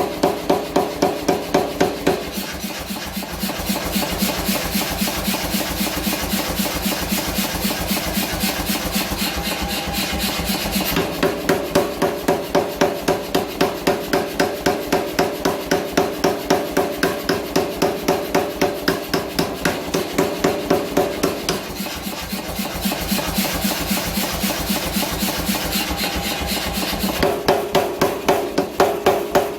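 Mechanical power hammer striking hot steel in a fast, even rhythm of about four to five blows a second, with a metallic ring whose pitch shifts a few times as the work is moved under the dies.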